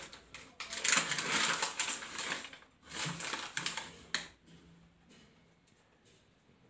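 Crinkling and rustling of a paper flour packet being opened and handled, in two bursts of crackly rustle that stop about four seconds in.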